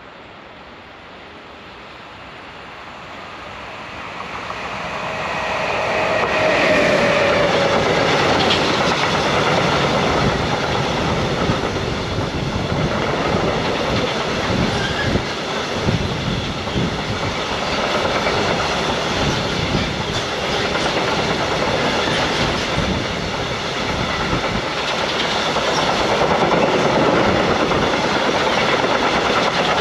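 Long freight train of flat wagons loaded with vans approaching and then rattling past close by, wheels clattering over the rails. The sound builds over the first few seconds as the train nears, with a brief falling tone as the head of the train goes by, then stays loud and steady as the wagons pass.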